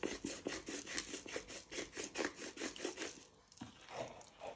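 Pepper mill being twisted over a bowl of raw chicken breasts, grinding black pepper in a quick, even run of rasping strokes. It stops about three seconds in, leaving a few scattered scrapes.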